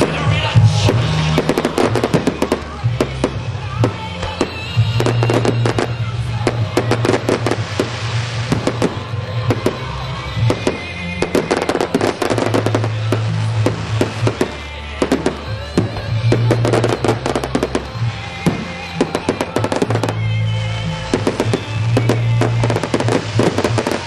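A fireworks display: dense, rapid crackling and pops of bursting shells, over loud music with a steady bass line.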